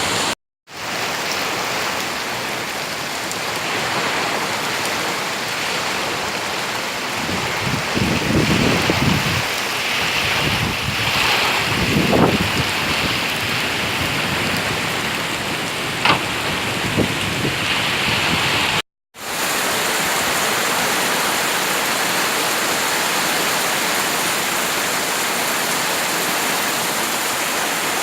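Summer storm: a steady rush of wind and heavy rain, with stronger gusts that buffet the microphone between about 8 and 13 seconds in. A single sharp click comes a few seconds later, and the sound cuts out briefly twice.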